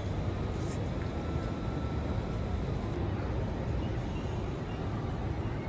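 Steady outdoor city background noise: a low, even rumble, like distant traffic.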